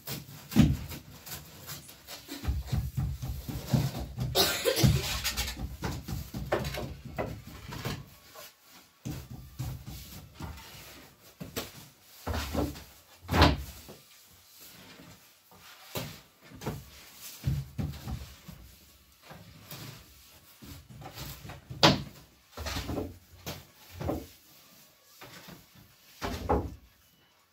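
Irregular knocks, thumps and scrapes of bread being worked by hand at a wood-fired clay oven: a long wooden peel and wooden tools knocking and scraping at the oven mouth, and dough being handled on a board. A few sharp knocks stand out, one near the start, one about halfway through and one about two thirds of the way in.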